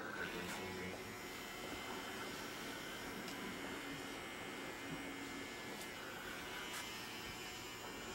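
Electric hair clippers running with a steady hum as a barber cuts a client's hair.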